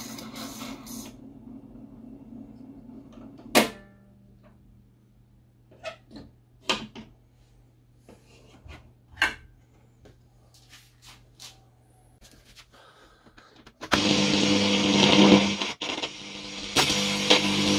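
Old Ei Melos Luxe IC radio-gramophone: several sharp clicks and knocks as the tonearm and turntable are handled. About fourteen seconds in, the set's loudspeaker comes on suddenly with a loud steady hum and hiss. The sound drops out for a moment as the front-panel knob is turned, on a radio in bad condition that may need its contacts cleaned and re-soldered.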